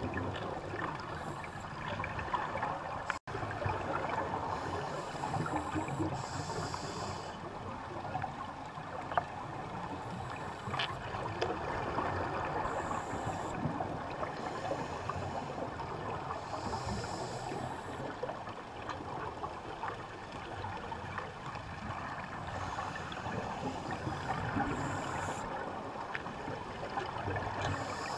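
Underwater sound picked up by a GoPro in its housing on the sea bed: a steady crackling hiss, with scuba divers' exhaled bubbles rising every few seconds. There is a brief dropout about three seconds in.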